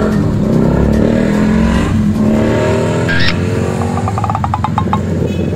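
Road traffic at a level crossing: motorcycles and cars running as they cross the tracks, with engine notes rising and falling as they pass.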